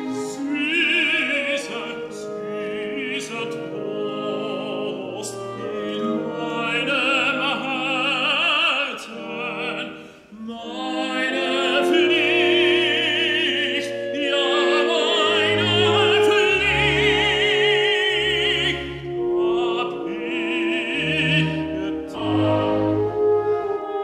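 Operatic tenor singing with wide vibrato over an orchestra.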